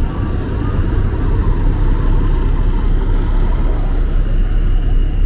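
Articulated city bus driving slowly past close by: a steady low rumble of engine and tyres.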